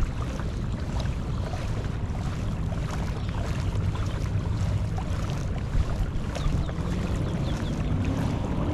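Steady wind rush on the microphone over water lapping against a kayak hull under way.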